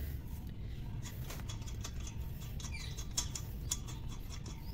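Light metal clicks and small squeaks as a wheel's lug nut is unscrewed with a wheel wrench, the nut already loosened, with a sharper click a little after three seconds in.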